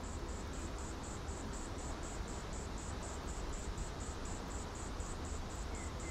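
Waterfall rushing steadily, with a high insect chirp repeating evenly about four times a second over it.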